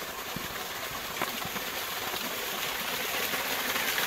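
Artesian well water pouring from the spouts of a stone fountain and splashing into its pools, a steady rushing hiss that grows louder as it comes closer.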